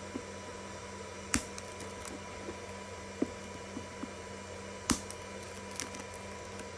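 Scattered sharp clicks and light taps from hands working plastic zip ties on a motorcycle boot, the two loudest about a second and a half and five seconds in, over a steady hum.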